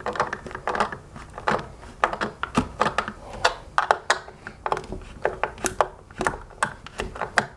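Hard plastic hoverboard shell being pressed and handled: an irregular series of sharp clicks and knocks, a few each second, as the clamshell halves are seated together.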